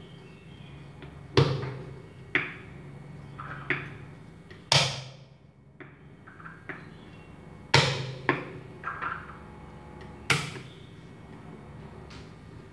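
Cleaver knocking on a thick wooden chopping board while mincing garlic and lemongrass: about ten sharp chops at uneven intervals, some louder than others.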